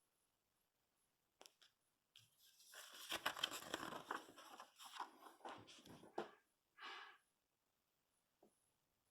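Paper catalog pages being handled and turned: about four seconds of crinkling and rustling, then a short soft swish.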